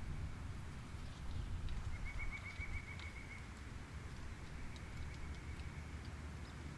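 A bird's rapid trill of high repeated notes, about seven a second, lasting about a second and a half, then a fainter trill near the end, over a steady low rumble of background noise.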